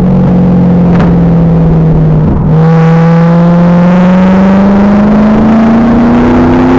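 Stock LS1 V8 of a 2000 Pontiac Trans Am Firehawk running hard on track, recorded loud and distorted. About two seconds in the note drops out briefly at an upshift of the six-speed manual. The pitch then climbs steadily as the car accelerates through the next gear.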